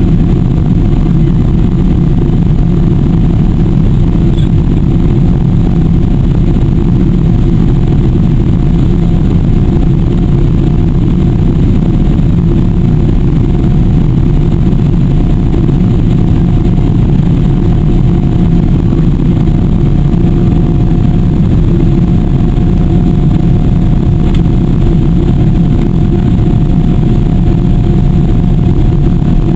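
Steady cabin noise of a Boeing 777-300 climbing after takeoff: a loud low rumble of engines and rushing air heard through the cabin, with a faint steady whine above it.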